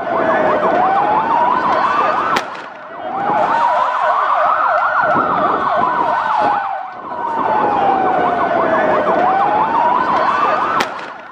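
Electronic emergency siren wailing slowly up and down, each rise or fall taking about two seconds, with a faster warble sounding over it.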